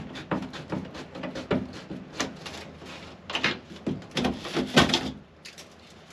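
Old plastic ceiling fan-light housing being unscrewed and worked loose with a screwdriver: irregular clicks, knocks and scraping of plastic and metal, loudest near the end as the housing is pulled down from the ceiling.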